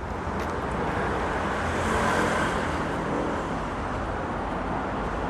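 Street traffic noise: a steady hum of road traffic that swells as a vehicle passes about two seconds in, then eases back.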